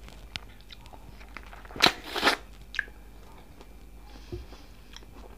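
A bite into a whole raw tomato about two seconds in, the loudest sound here, followed by faint chewing and mouth clicks.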